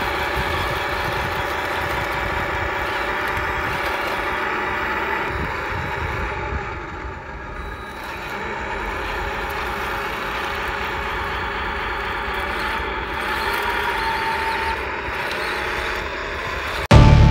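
1/16-scale RC Panzer IV model tank driving over rubble and through a puddle, its motors, gearing and tracks running steadily. Loud music cuts in just before the end.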